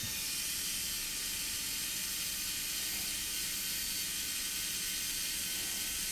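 Cordless electric screwdriver running steadily as it drives a small screw into a drone frame: an even whirring hiss with a faint steady tone.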